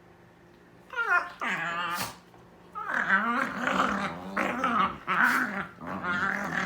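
Dogs scuffling, one growling and snarling in wavering bursts. It starts about a second in and runs almost without a break from about three seconds in. This is the sound of an annoyed dog warning off another dog that keeps pestering him.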